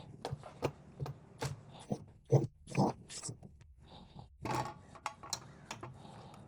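Irregular clicks and knocks of hand tools working a bolt on the car's front end, uneven in strength with a few louder knocks.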